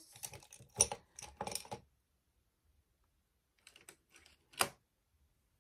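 Light clicks and taps of makeup brushes and products being handled and set down on a table. They come in a few quick clusters, with the loudest single click about four and a half seconds in.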